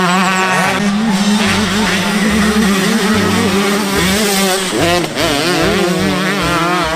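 Several motocross dirt bikes racing. Their engines rev up and drop back again and again as the riders work the throttle and shift gears, with the pitch rising and falling repeatedly.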